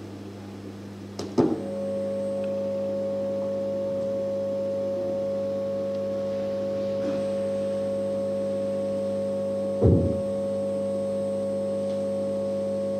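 A steady drone of several held tones, low and mid-pitched, sets in just after a sharp knock about a second in and holds without fading. A second knock sounds near the end, and the drone carries on under it.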